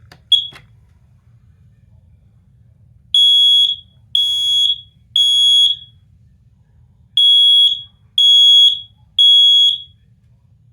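Smoke alarm sounding its test alarm: a short high beep, then two rounds of three loud, evenly spaced beeps in the standard temporal-three evacuation pattern.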